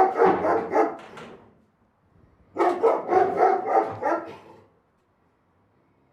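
Big dog barking in two quick runs of barks, about three to four a second, with a pause of about a second between them; the second run fades out about two-thirds of the way in.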